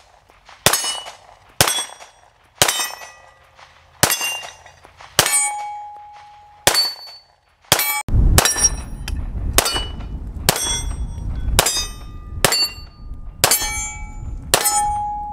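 9mm pistol shots about once a second, fired first from a Springfield Armory Echelon and then, from about eight seconds in, from a Springfield XD-M Elite. Several shots are followed by a ringing tone from a struck steel target. In the second half, wind rumbles on the microphone.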